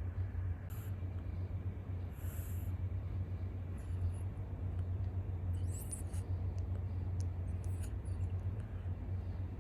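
A sleeping cat snoring: short, faint, high wheezy whistles of breath come about every one and a half to two seconds over a steady low hum.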